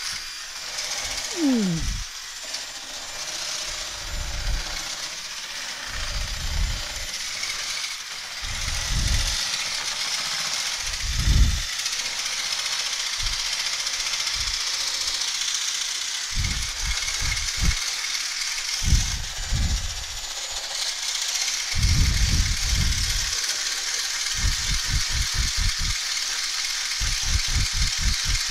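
Whipping cream being beaten in a plastic container: a steady whir with irregular low knocks, which come in quick runs near the end.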